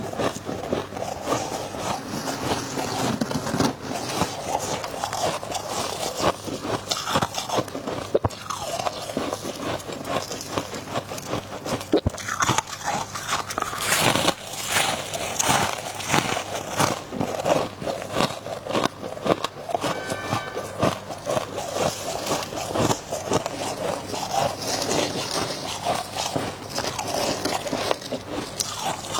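Freezer frost and ice being bitten and chewed close up, a continuous run of crackling crunches.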